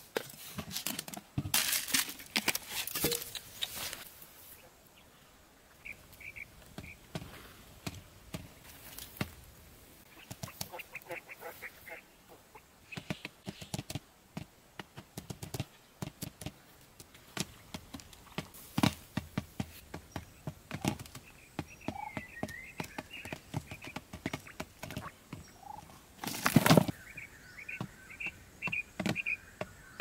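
Grain rattling onto a plastic bucket lid, then a quail pecking seeds off the lid in many quick taps, with short high chirping calls now and then and one loud thump near the end.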